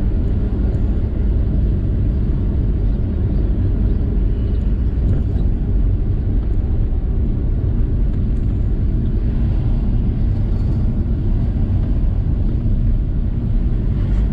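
VW T4 campervan driving along: steady engine and road noise, mostly low in pitch.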